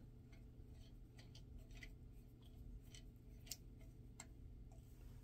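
Faint, irregular small clicks and scrapes of a screwdriver turning a screw into the back end of a sewing machine's drive shaft, at the centre of the handwheel.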